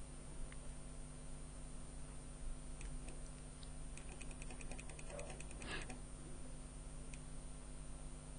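Faint clicks and, about four seconds in, a quick run of small ticks lasting about a second, from a computer mouse while scrolling through a list, over a steady low hum.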